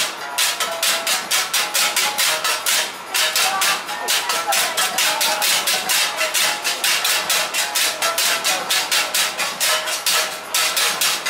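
Small handheld gongs struck with beaters in unison, a fast steady clanging of about five strokes a second with a metallic ring, pausing briefly about three seconds in and again near the end.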